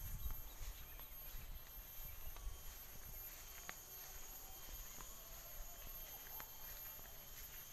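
Faint open-air ambience over a rice paddy: wind rumbling low on the microphone, easing off early, under a steady high-pitched insect drone, with scattered faint clicks.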